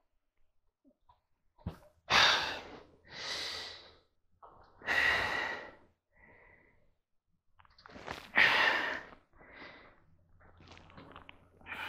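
A man's heavy breathing close to the microphone: four loud breaths or sighs of about half a second to a second each, with pauses between.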